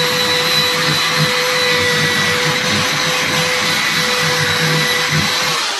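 Handheld electric drill running steadily at full speed with a wood drill bit, boring through a wooden flush door: a steady motor whine over a loud hiss that winds down near the end. The bit is too small for the hole, so the drill is wobbled around to widen it.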